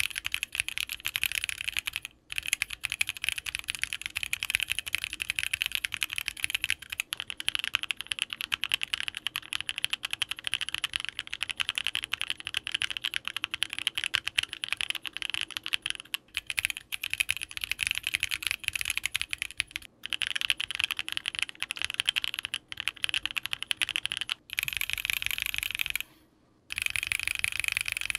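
Fast, continuous typing on a Voice65 mechanical keyboard with Thic Thock Konpeitou switches, a polycarbonate plate and GMK keycaps: a dense patter of keystrokes broken by a few short pauses, the longest near the end.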